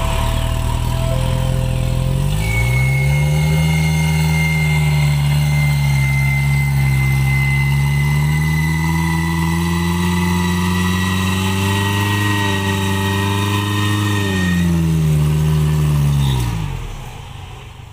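Suzuki Jimny's 1.6 L G16A four-cylinder engine revving hard under load as the four-wheel drive works through deep mud. The revs climb about two seconds in, are held high for around twelve seconds with a thin high whine over them, then drop back, and the sound fades near the end.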